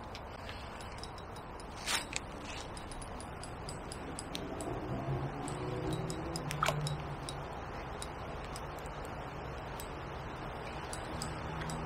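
Faint clicking of a Shimano Exage FD spinning reel being wound while a hooked fish is played, over a steady riverside background, with two sharper clicks. A low hum rises and fades in the middle.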